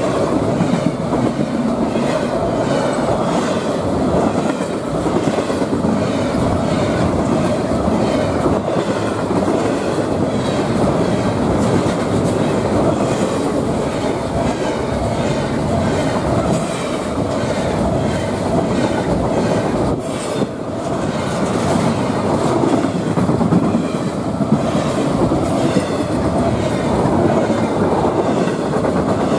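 Double-stack container well cars of a freight train rolling past close by: a continuous loud rumble and rattle of steel wheels on rail, broken by a few sharp clanks.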